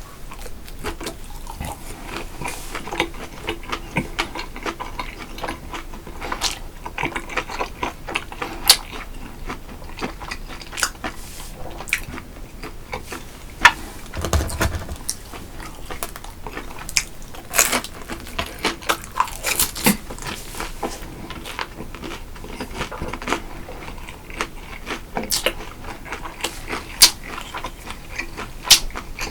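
Close-miked eating: a man chewing and biting food, with crunching and frequent sharp clicks and smacks at irregular times.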